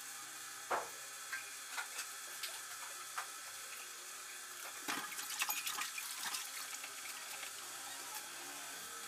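Faint running tap water with scattered light clicks and knocks of kitchen handling, busiest from about five seconds in.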